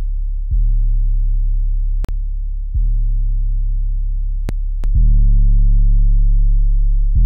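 Soloed 808 sub bass playing long, held low notes, a new note every two to two and a half seconds, through a saturation plugin. About five seconds in, the bass gets louder and grittier, with higher overtones added. Three short clicks come between the notes.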